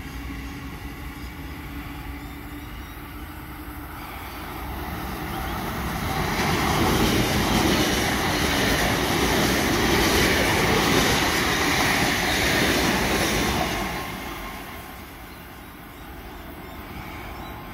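Sydney Trains S-set double-deck electric train passing through the station on the near track: its wheel and rail noise builds from about four seconds in, stays loud for about seven seconds, then fades away. At the start a fainter electric-train hum with a steady whine, from the departing Waratah set, is dying away.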